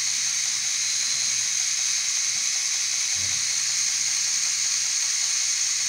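LEGO Technic electropneumatic gearbox model running on its motors: a steady high whirring hiss with a faint low hum beneath, while its pneumatic system builds air pressure for the next shift. A soft low thump about three seconds in.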